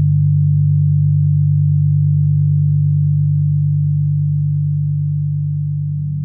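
Steady low electronic drone of several stacked sine tones, generated by software from brainwave frequencies. It eases slightly quieter near the end.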